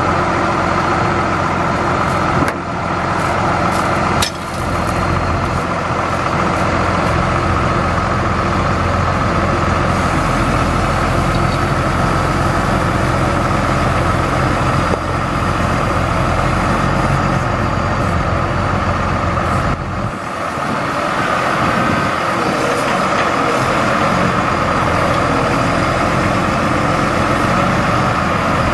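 Truck engine running steadily to drive the National N80 crane's hydraulics as the boom is raised and extended, with a steady higher hum over it. The sound dips briefly a few times as the controls are worked.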